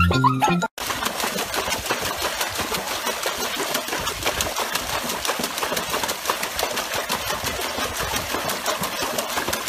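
Water splashing and churning hard and without pause as a dog paddles and thrashes in a plastic tub, a dense, fast, rattling splash that starts abruptly about a second in.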